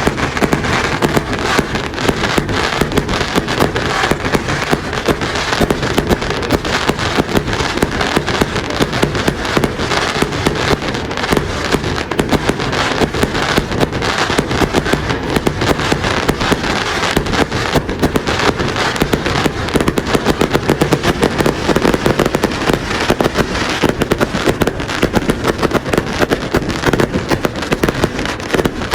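Fireworks display: a rapid, continuous barrage of bangs and crackles with no let-up.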